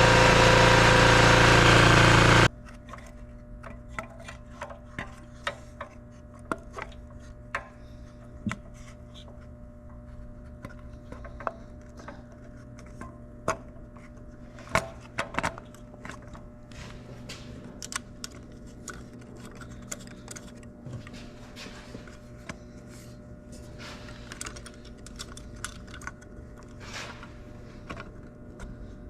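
Small generator engine running with its new fuel valve and refitted carburetor, then cutting off suddenly about two seconds in. After that come scattered light clicks and knocks of parts or tools being handled over a faint steady hum.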